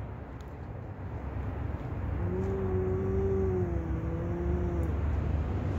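Cat's long, low yowl starting about two seconds in and held for nearly three seconds, its pitch steady and then sagging slightly at the end: the warning call of a cat in an aggressive standoff. A steady low rumble runs underneath.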